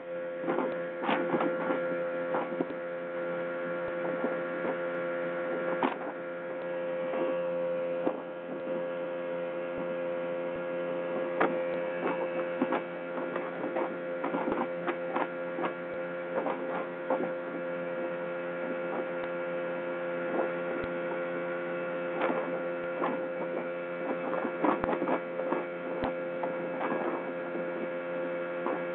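Speedboat engine running at a steady pitch, with irregular short knocks and thumps throughout.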